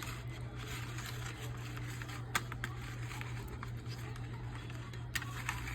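Wire whisk stirring a mayonnaise dressing in a bowl: soft wet scraping strokes with a few sharp clicks of the whisk against the bowl, over a steady low hum.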